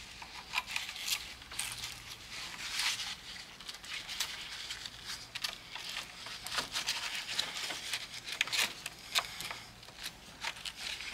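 Nylon suitcase lining and webbing strap rustling and crinkling as a strap is threaded through the lining and tugged into place, in irregular short scrapes.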